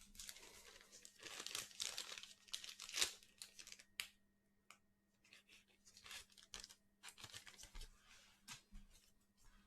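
Faint crinkling and rustling of handled packaging, in irregular crackly bursts, with a brief pause about four seconds in.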